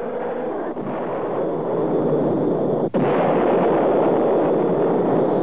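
Explosion, heard as a continuous heavy roar. It drops out briefly about three seconds in, then carries on.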